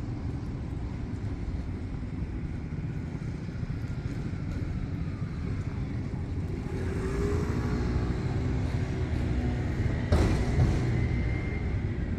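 City street traffic: a steady low rumble of passing vehicles, with one vehicle's pitched engine sound growing louder from about halfway through. A sharp knock comes near the end.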